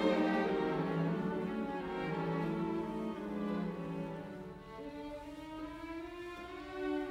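Slow background music on bowed strings, long held notes that fade down in the middle and swell again near the end.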